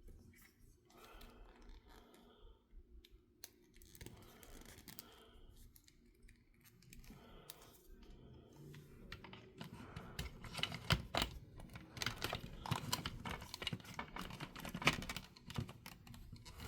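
Plastic action figure and Stridor toy horse being handled: faint rubbing at first, then from about ten seconds in a run of quick small clicks and taps as the figure's parts and the reins are fitted into place.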